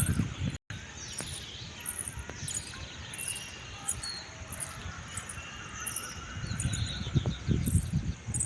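Insects chirping in a steady pulse about twice a second, with scattered bird calls and a low rumbling that grows louder near the end; the sound cuts out briefly under a second in.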